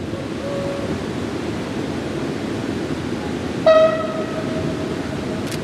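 Horn of the diesel locomotive BB 64047 (a BB 63500-series engine) sounding: a brief faint toot near the start, then a single-note blast about two-thirds in, loud at first and held for about two seconds, over a steady low rumble.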